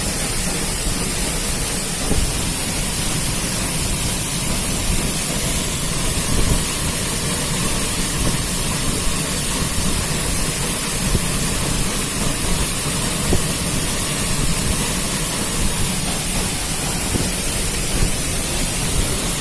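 Waterfall's falling water rushing steadily.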